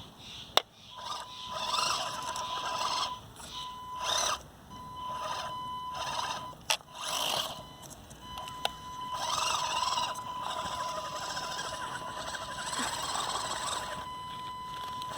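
Axial SCX24 micro crawler's small brushed electric motor whining in stops and starts, its tyres scrabbling over dirt and rock as it strains on a climb in the low throttle setting, which lacks the power to get it up. Two sharp clicks come in, about half a second in and again near the middle.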